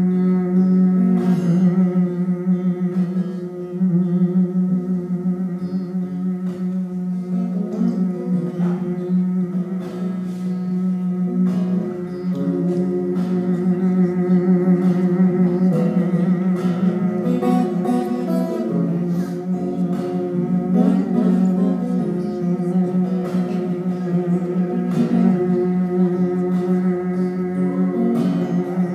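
Acoustic guitar played live through a PA system, steady strummed chords ringing on with sustained low notes.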